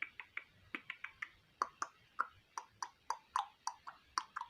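A person clicking their tongue in an uneven run of sharp clicks, about three to four a second, imitating the clip-clop of a walking horse's hooves.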